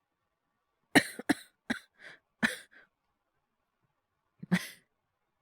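Acted coughing fit in a performed sick voice: about six quick, sharp coughs starting about a second in, then a single cough near the end. It is performed to portray a cold with fever, not a real cough.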